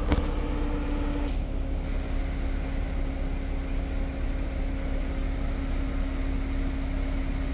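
Vehicle engine idling: a steady low rumble with a constant hum over it, and a short sharp knock right at the start.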